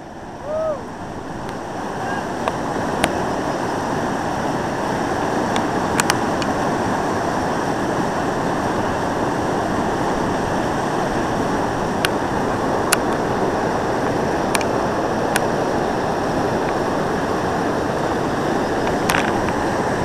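Class III whitewater rapid rushing steadily, building over the first couple of seconds and then holding. A short voice call comes just after the start, and a few faint sharp ticks are scattered through.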